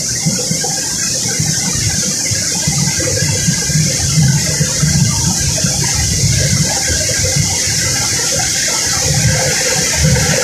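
Flour mill machinery running: a loud, steady rushing hiss with an uneven low rumble beneath it.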